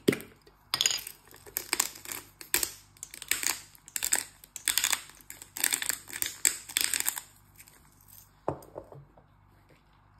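Pink Himalayan salt and black pepper grinder twisted by hand, grinding in a quick string of short strokes that stop about seven seconds in. A single knock follows near the end.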